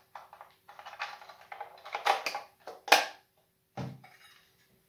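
Plastic clicks, taps and rustling from handling a variable frequency drive's plastic housing and its clip-on keypad, with a sharp click about three seconds in and a duller knock just before four seconds.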